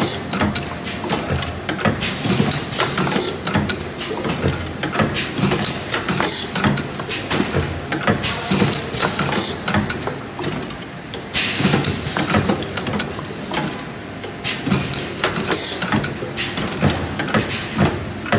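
Automatic LED bulb glue-dispensing machine running: its rotary indexing table and tooling clatter and clack continuously. Short hisses come about every three seconds.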